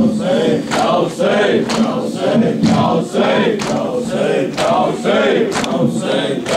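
A group of men chanting an Urdu nauha (mourning lament) together, with chest-beating matam in unison about once a second.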